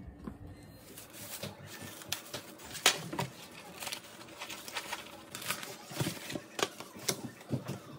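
Plastic cling wrap crinkling and a foam food tray knocking on a stainless steel tray as a pack of sea bream heads is handled: irregular sharp clicks and rustles, the sharpest about three seconds in.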